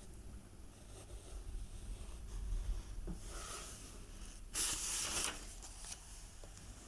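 Page of a paperback book turned by hand: a soft paper rustle a little after three seconds, then a louder, brief swish of the page about four and a half seconds in. Under it runs a faint steady background of soft wind ambience.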